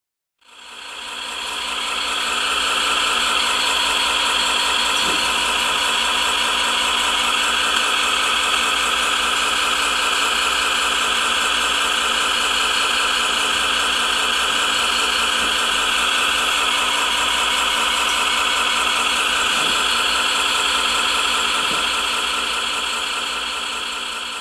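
Simulated diesel engine idling from the RC truck's Servonaut SMX sound module, a steady run through a small speaker with little bass. It fades in over the first couple of seconds and starts fading near the end, with a few faint knocks along the way.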